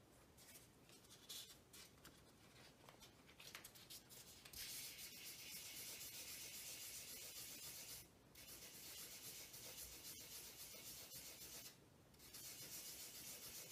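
Wet 2000-grit sandpaper rubbed under a fingertip over dried touch-up paint on a white freezer door: a faint, fine hiss. It comes in short strokes at first, then turns into a steady back-and-forth rub, broken by two brief pauses in the second half.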